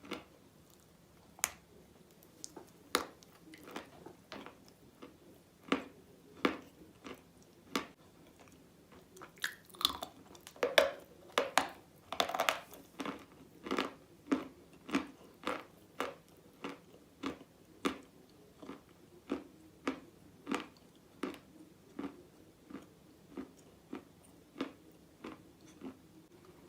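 Crunching bites and chewing of soaked chalk coated in red clay paste, with a crisp crunch about once a second that gets busier and louder about ten to thirteen seconds in.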